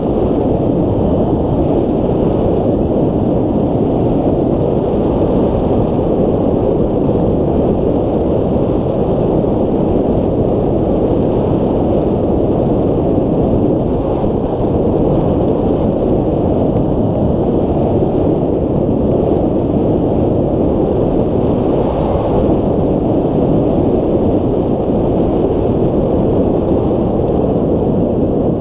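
Steady wind noise from the airflow of flight rushing over the microphone of a camera mounted on a hang glider's wing, a constant low rumble with no let-up.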